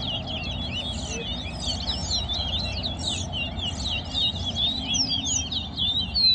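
Chestnut-bellied seed finch (towa towa) singing a fast, unbroken warbling twitter of quickly rising and falling notes, over a low background rumble.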